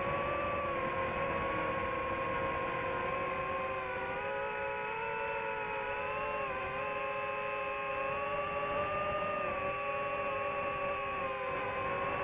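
Multirotor motors and propellers of a DJI FPV drone whining steadily in flight. The pitch sways slightly up and down as the throttle changes.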